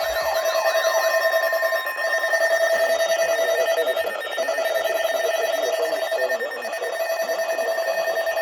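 Electronic alert tone from an Emergency Alert System broadcast: a steady, rapidly pulsing beep, with warbling up-and-down sweeps over it that fade out about two seconds in.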